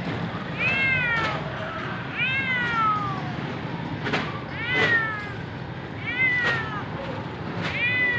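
Cat meowing five times, about every one and a half seconds; each meow rises then falls in pitch.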